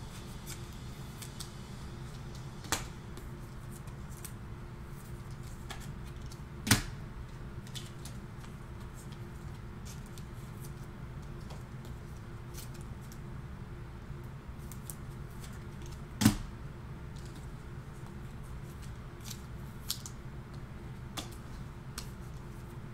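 Trading cards being handled and flipped through by hand, with scattered small ticks and three sharp clicks, the loudest a little under 7 s and about 16 s in, over a steady low hum.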